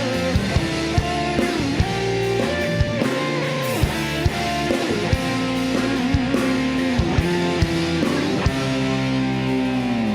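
Rock band playing an instrumental passage: a lead guitar melody with bends and slides over a drum kit hitting steadily.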